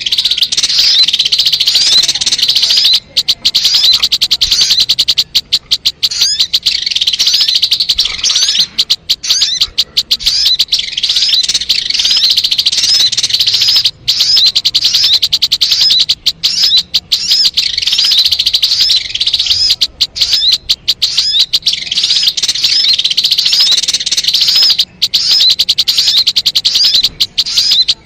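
Sogon (ruby-cheeked sunbird) song played as a lure recording: loud, rapid, high-pitched chirping kept up almost without pause, broken by a few short gaps.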